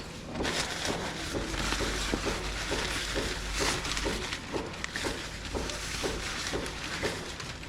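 Rustling and handling noise as camping bags are moved and gathered together, with a run of soft knocks.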